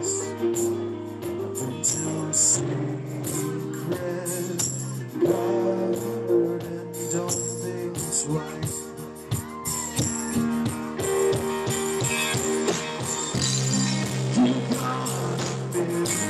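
Live band playing a slow rock song: electric guitar and drums with cymbals, and a male voice singing.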